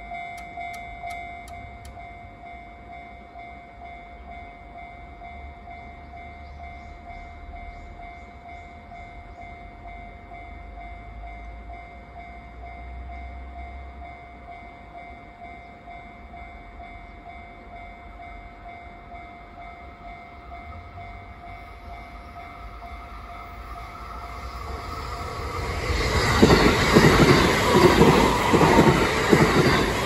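Japanese railway level-crossing alarm ringing steadily while the barriers are down. Near the end an electric train approaches and passes over the crossing, its wheels rumbling and clattering loudly over the last few seconds.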